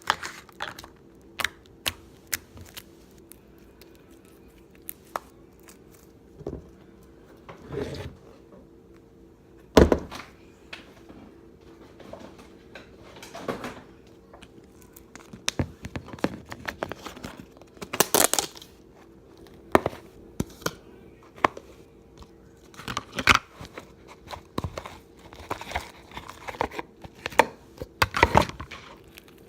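Slime being squished and mixed by hand, giving irregular crackles, crinkles and clicks, with a few louder pops. A faint steady hum runs underneath.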